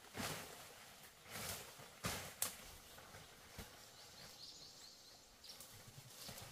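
Faint rustling of leaves and brush with a few light knocks, the sharpest about two seconds in, as a person moves through forest undergrowth. Faint bird chirps come in about halfway through.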